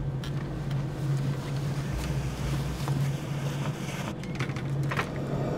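Steady low drone of airliner jet engines heard inside the cabin, with a hiss of rushing air. The drone swells with a deeper rumble about two seconds in.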